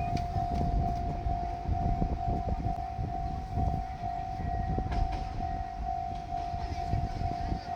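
Japanese level-crossing warning bell ringing, one electronic tone repeating a little over twice a second, over the low rumble of a diesel train.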